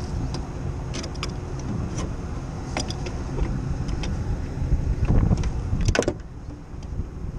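Scattered metallic clinks and knocks from gloved hands working a cooling-tower fan motor and its belt pulley, the loudest cluster about six seconds in, over a steady low rumble.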